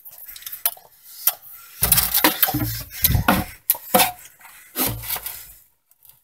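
A cardboard box being handled close to the microphone: irregular taps, scrapes and rubbing with low handling thumps, dying away near the end.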